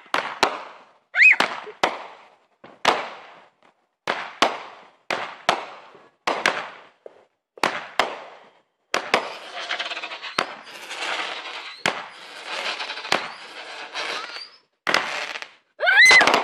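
Fireworks going off: a run of sharp bangs, about one or two a second, each trailing off briefly, with a dense crackling stretch in the middle.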